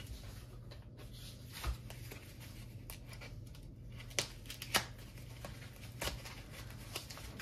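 A few light clicks and rustles of small plastic parts and packaging being handled, over a steady low hum.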